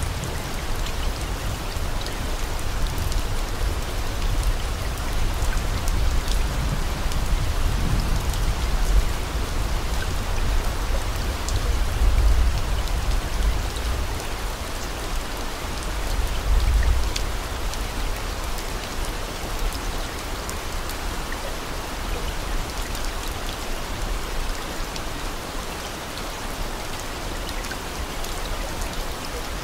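Steady rain falling, with scattered drop ticks and a low rumble that swells a few times.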